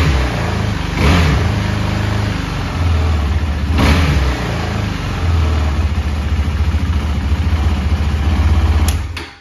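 KTM Duke 390's 373 cc single-cylinder engine idling, with short throttle blips about a second in and again about four seconds in, then switched off near the end. For a single it sounds a little bit quiet.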